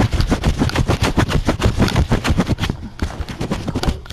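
A cat's fur rubbing and brushing over the live-cam's microphone: a loud, rapid crackling and scraping, many crackles a second, that thins out and stops near the end.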